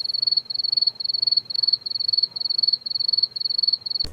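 Cricket chirping steadily, about two chirps a second, each chirp a quick pulsed trill at one high pitch.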